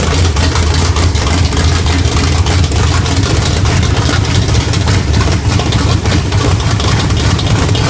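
Small-block Chevy 350 V8 with a Comp Cams Thumper hydraulic roller cam, idling rough with an uneven, choppy pulse.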